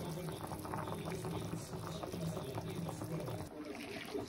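Spiced biryani base of masala and water boiling hard in a pot on the stove, a dense bubbling and crackling.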